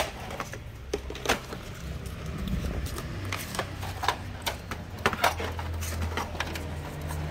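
Plastic power-tool battery chargers being handled and set down, clacking and knocking against each other in irregular sharp clicks, over a low steady hum.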